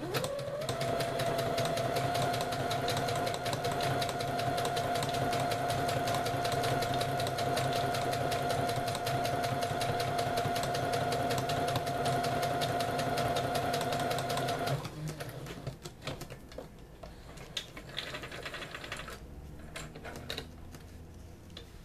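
Computerized sewing machine sewing a row of long gathering stitches through lightweight stretchy fabric. The motor spins up within a second to a steady hum with rapid needle ticking, then stops abruptly about 15 seconds in. Quieter clicks and handling of the machine and thread follow.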